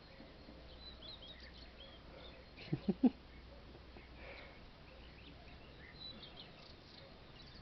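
Faint small birds chirping in the background, with three short low vocal sounds in quick succession about three seconds in.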